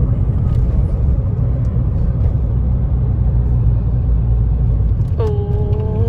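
Steady low engine and road rumble inside a Ford car's cabin as it climbs a steep hill. About five seconds in, a passenger lets out a long, held "ohh".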